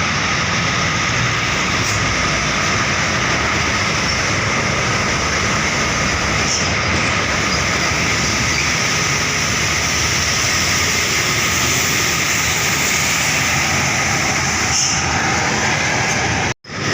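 Heavy road traffic passing steadily: a continuous rush of engines and tyres, with no horn. The sound cuts out briefly near the end.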